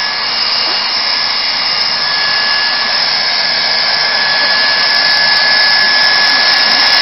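Handheld hot-air plastic welder blowing steadily, a constant rushing hiss with a thin high whine, as its hot air melts a patch's edge into an HDPE liner.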